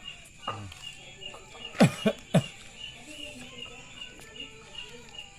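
A high chirp repeats about twice a second in the background, as from an animal. Three short, loud sounds falling in pitch come close together about two seconds in.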